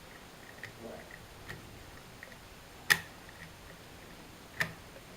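Small metallic clicks of a curtain pick working the levers inside an Era Fortress lever mortice deadbolt, with two sharp, louder clicks about three seconds in and again a second and a half later.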